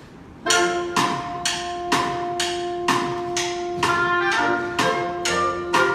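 Instrumental music starting about half a second in: a steady percussive beat about twice a second under long held notes, with the held notes changing pitch about four seconds in.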